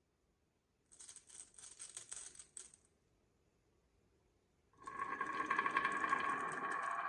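Marbles clattering and clicking along a wooden marble run for about two seconds. About five seconds in, a louder, steady whirring sound with fast ticking begins and keeps going.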